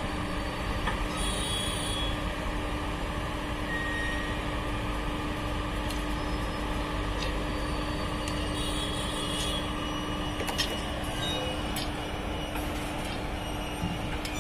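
Indian Railways electric locomotive moving slowly along the track, with a steady hum and brief high-pitched squeals and a few sharp clicks from the wheels and rails.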